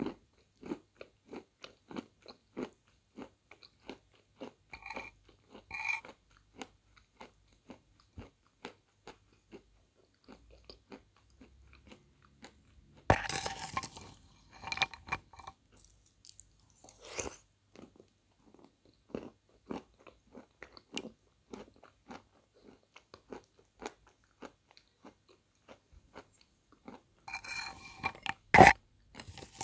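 Close-up chewing and wet mouth clicks from someone eating soup. A metal spoon clinks against a ceramic bowl about 13 seconds in, and again more loudly near the end.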